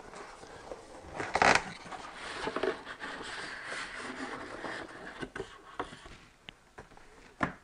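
Cardboard and styrofoam packing peanuts rustling and scraping as a boxed radio is lifted out of a shipping carton, with a louder scrape about one and a half seconds in and a couple of sharp knocks near the end.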